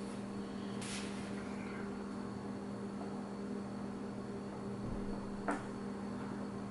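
Steady low electrical hum of room tone, with two faint small clicks while parts are handled during soldering: one about a second in, one about five and a half seconds in.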